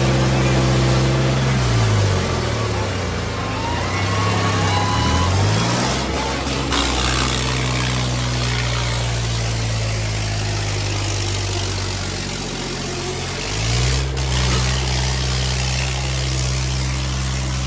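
Diesel tractor engine pulling a heavy sled at full effort. Its note sags as the load bogs it down, then climbs back, twice.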